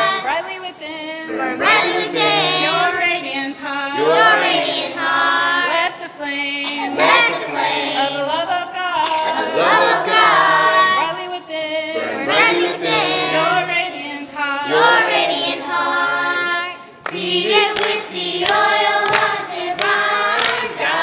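Children's choir singing a song, with sharp hand claps about twice a second in the last few seconds.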